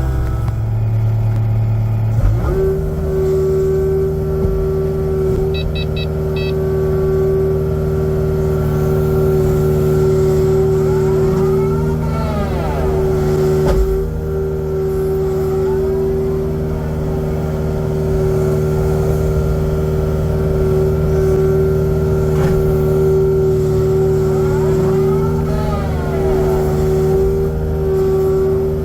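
Kubota excavator's diesel engine speeding up about two seconds in, then running steadily at working speed. A higher tone rises and falls briefly twice.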